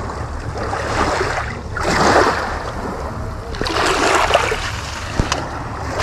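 Small waves of a nearly calm sea lapping on a pebble shore, the wash swelling and falling back about every two seconds.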